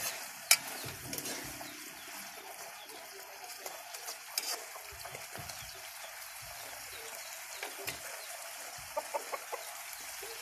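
Sardines and malunggay leaves simmering in a pan with a faint steady sizzle, with two sharp clicks right at the start. Chickens cluck in the background, a few short clucks coming about nine seconds in.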